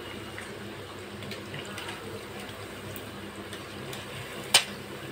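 Keema-coated eggs sizzling steadily in hot oil in a kadai, with a sharp metal clink about four and a half seconds in.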